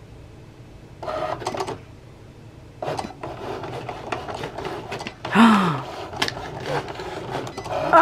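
Cricut Explore cutting machine's motors whirring in short stop-start runs with clicks as it feeds and cuts a sheet of Smart Iron-On vinyl loaded without a mat. A louder sound falling in pitch cuts in about five and a half seconds in.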